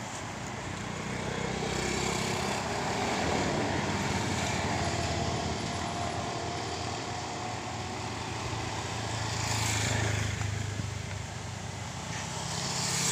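Passing road traffic: a steady low engine drone that swells as vehicles go by, about three seconds in, around ten seconds, and again near the end.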